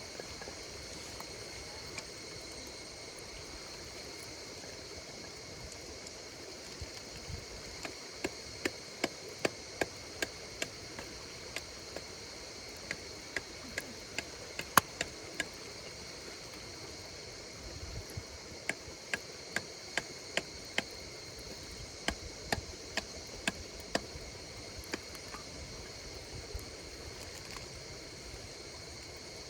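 Wood campfire crackling, with sharp pops in clusters and one louder snap about halfway through, over a steady chorus of insects calling on several high pitches.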